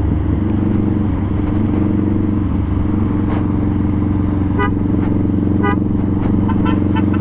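Honda Rebel 500's 471 cc parallel-twin engine running steadily through an aftermarket full-system exhaust while cruising. A few short horn beeps sound about halfway through and again near the end.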